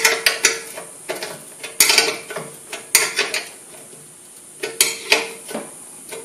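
Metal clinks and light scrapes as the adjustable spark guard of a bench grinder is slid and set against the wheel housing by hand. They come in several bunches over about five seconds, some leaving a short metallic ring.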